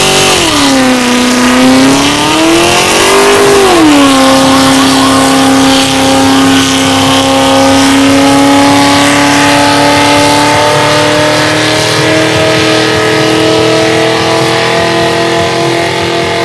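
Dodge Charger police car doing a burnout, its engine revving hard with the rear tyres spinning in thick smoke. The revs dip and climb again in the first few seconds, then hold at a steady high pitch that slowly creeps upward before cutting off suddenly at the end.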